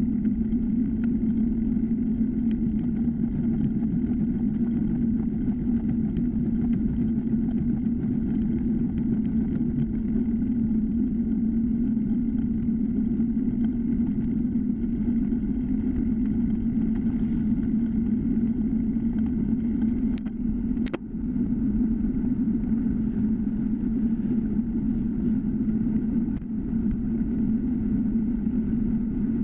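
Steady, muffled rumble of wind and tyre noise from a time-trial bicycle rolling along an asphalt road, picked up by a bike-mounted GoPro. A single short click with a brief dip in the rumble comes about two-thirds of the way through.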